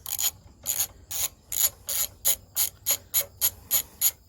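Socket ratchet wrench clicking in about a dozen short, quickening strokes as a bolt is backed out.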